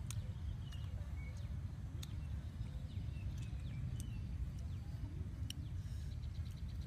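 Outdoor ambience: a steady low rumble with scattered short high chirps, as from birds, and a few sharp clicks. Near the end comes a rapid ticking trill of about ten ticks a second.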